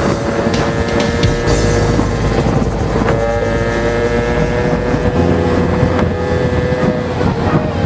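Goped scooter's ported 63cc two-stroke engine running at steady high revs while riding, its pitch sagging a little, with wind noise on the microphone.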